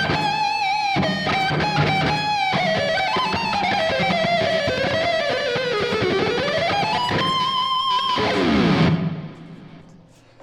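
Ibanez AZ24S electric guitar playing a lead melody of sustained notes with string bends and vibrato. Near the end the pitch slides steeply down and the sound dies away.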